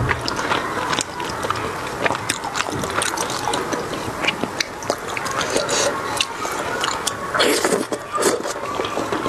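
Close-miked chewing and slurping of chewy, saucy spicy noodles, with many quick wet mouth clicks and smacks.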